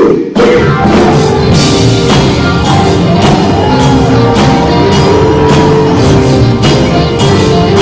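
Band music with a drum kit and guitar playing a steady beat.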